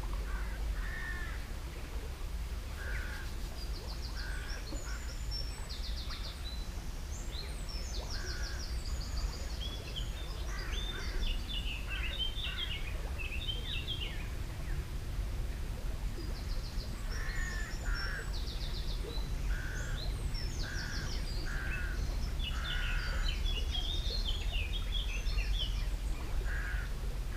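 Several wild birds singing and calling: short repeated calls, rapid high trills and warbling phrases, over a low steady rumble.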